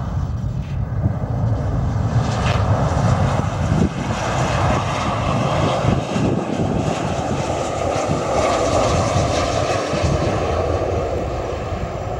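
Airplane engines running, a loud steady rush that builds in the first few seconds and eases off toward the end.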